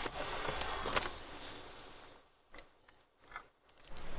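Hand work on small parts: rubbing and scraping with a sharp click about a second in, fading away, then two faint ticks in near quiet.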